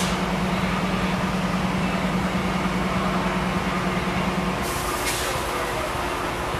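GE P40 diesel locomotive running with a steady low hum that cuts off about four and a half seconds in, followed by a short hiss of air.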